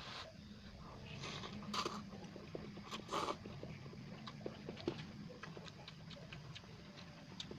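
Eating instant cup noodles: a run of small wet clicks from chewing and mouth noises, with two louder short bursts about two and three seconds in, over a steady low hum.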